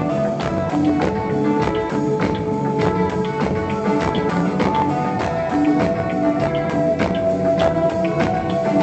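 Live band playing an instrumental passage: electric guitars holding sustained notes over a steady drumbeat, heard loud from within the crowd.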